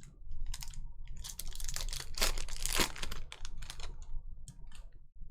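Football trading cards handled and flipped through in the hands: a quick run of clicks and papery slides and rustles, busiest in the middle.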